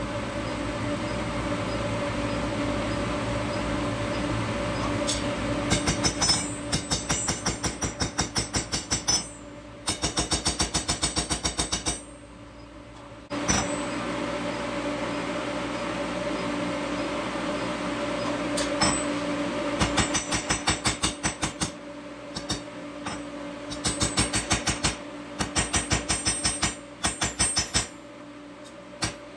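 Induction forge humming steadily as it heats the O1 tool steel bar. This alternates with quick runs of hammer blows on the hot steel, about five strikes a second, with short pauses between runs.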